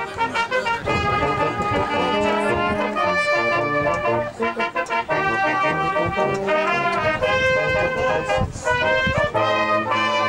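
Brass band playing a tune, with trombones and tubas among the instruments; chords are held and change every second or so.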